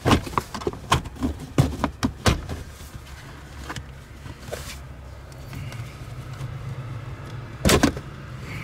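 Hard plastic console trim panel beside a manual gear shifter being pried up: a quick run of sharp clicks and knocks in the first couple of seconds as it pops loose, then a steady low hum underneath, and a loud scrape near the end.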